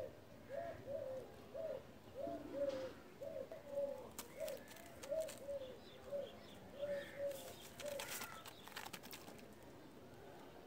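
White domestic pigeons cooing: a run of short, rising-then-falling coos at about two a second that stops about a second and a half before the end. A few brief clicks fall in between, the last ones near the end.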